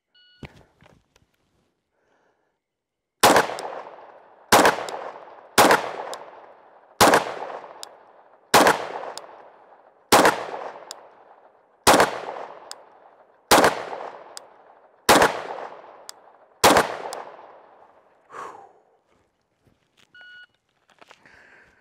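A shot timer beeps to start, and about three seconds later a Glock 40 10mm pistol fires ten shots, roughly a second and a half apart, each ringing out with a long echo. A second timer beep near the end marks the end of the 20-second par time.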